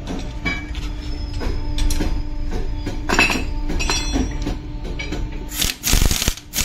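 Steel tools clinking and knocking against a truck leaf spring pack as it is assembled, then an impact wrench runs briefly about six seconds in, tightening a spring clamp bolt.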